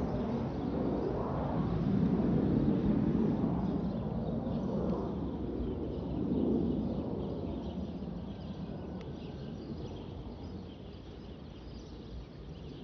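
Panavia Tornado jet's twin RB199 turbofan engines rumbling away into the distance after a low pass, fading steadily with a couple of brief swells.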